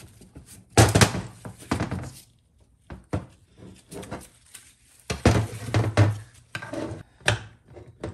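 Cast aluminium transmission valve body (TH350C) handled on a workbench: a series of knocks and clattering thunks as it is lifted, turned over and set back down. The knocks come in a cluster in the first couple of seconds, singly about three seconds in, in a longer run of clatter past the middle, and once more near the end.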